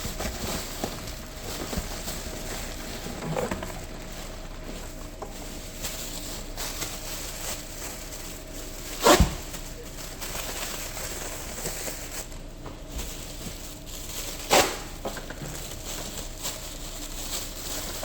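Plastic air-cushion packing rustling and crinkling as it is stuffed around a printer in a cardboard box, with two sharp knocks, one about halfway through and one a few seconds later.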